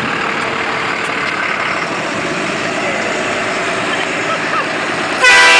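Large Ford pickup truck's engine running as it hauls a boat trailer up the launch ramp; near the end the truck's horn sounds once, loud, for a little under a second.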